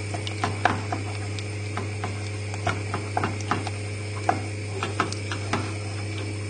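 A utensil stirring thick white sauce in an enamel saucepan, knocking and scraping against the pan in irregular clicks a few times a second, over a steady low hum.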